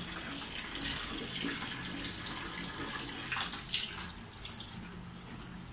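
Water running steadily from a tap pipe into a plastic basin.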